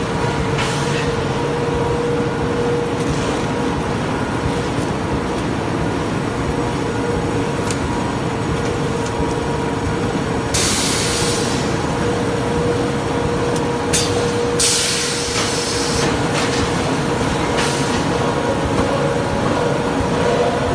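Corrugated box production line running, a flexo folder gluer with its bundle conveyors and strapping tyer: a steady machine drone with a constant hum tone. Two bursts of hissing come about halfway through, and there are a few sharp clicks.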